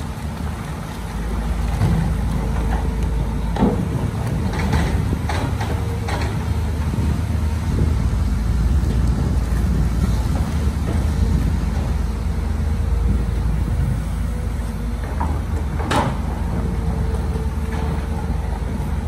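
Diesel engine of heavy construction equipment running steadily with a low rumble, with a few sharp clanks and knocks, the loudest about 16 seconds in.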